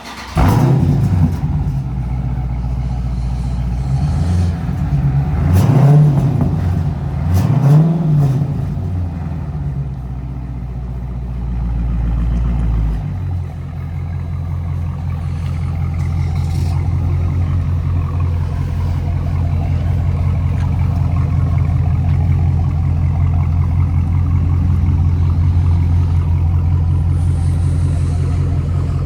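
Dodge Charger Scat Pack's 6.4-litre HEMI V8 with its mufflers cut off, starting up with a sudden loud catch and then blipped up a few times. About thirteen seconds in the high idle drops, and it settles into a steady, loud, lumpy idle.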